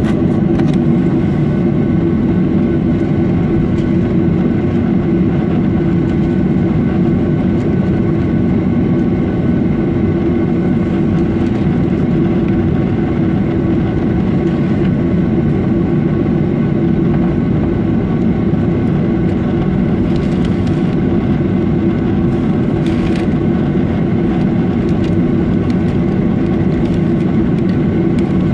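Steady drone of a jet airliner's engines at low taxiing power, heard from inside the cabin, with a constant hum of several steady tones over it.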